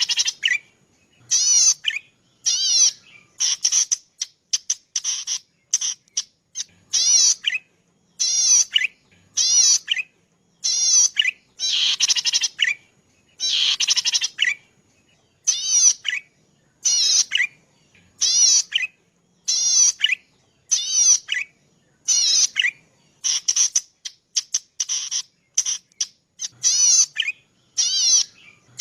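Cici padi singing: a short, high, rapidly quavering phrase repeated over and over, about one every second or so, with brief silences between.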